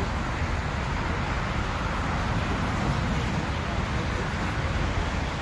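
Jet aircraft engine noise: a steady, even rumble that neither rises nor falls.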